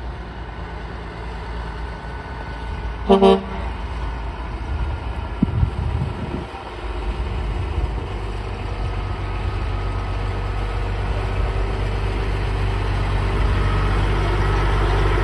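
Diesel semi tractor's engine running under load as it pulls a loaded lowboy trailer, growing louder as the rig approaches. A short horn blast sounds about three seconds in.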